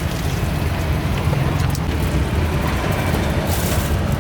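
Steady rumble of traffic on a busy road, with scattered small clicks and clatter and a brief hiss near the end.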